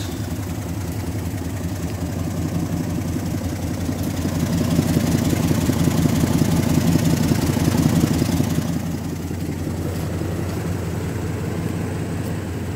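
Nissan Titan pickup's engine idling steadily, louder for a few seconds in the middle when heard from close by the front wheel well.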